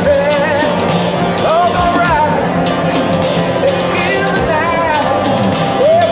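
A man singing a held, wavering melody live, accompanied by a strummed acoustic guitar.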